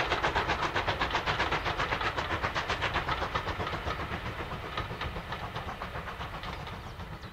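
LMS Black 5 two-cylinder 4-6-0 steam locomotive working at speed: rapid, even exhaust beats that fade steadily as the train draws away.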